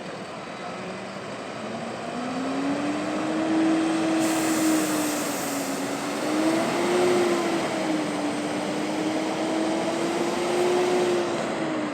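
Heavy diesel engine running under load, its pitch climbing about two seconds in and then rising and falling gently as the engine speed changes.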